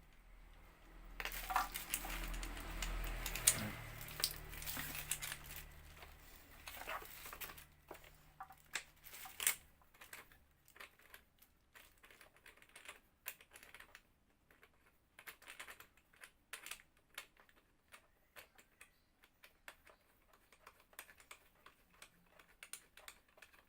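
Hands handling and fitting parts and hose connectors on an H&L pressure washer: irregular clicks, taps and rattles, busier and louder in the first half, then sparse small clicks.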